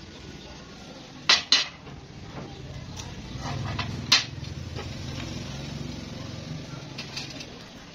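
Pieces of steel flat bar clinking against each other as they are handled and set down: two sharp metallic clinks just over a second in and another about four seconds in.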